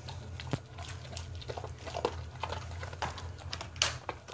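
A dog chewing and mouthing a food reward close to the microphone: irregular short clicks and smacks of the jaws.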